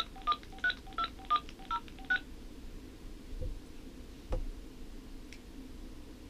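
Home phone handset's keypad sounding touch-tone beeps as a number is dialed: about seven quick tones in the first two seconds. A couple of light knocks follow.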